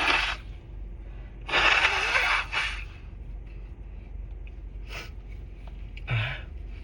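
A person with a head cold blowing a congested nose. One blow ends just as it begins, and a longer, forceful blow runs from about a second and a half to three seconds in. Short sniffs follow near the end.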